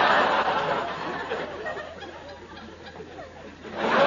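Audience laughter, loud at first and dying down over about three seconds, then a fresh wave of laughter rising near the end.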